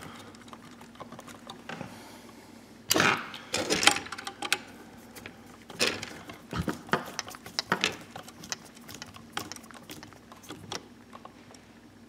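Screwdriver working the ground terminal screw of an electrical receptacle to clamp the bare copper ground wire under its brass plate: irregular small metal clicks and scrapes, with a louder knock about three seconds in.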